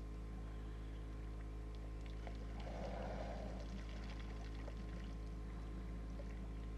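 African elephant's feet squelching and splashing through wet mud, with one louder wet splash about three seconds in and a few small clicks, over a steady low hum.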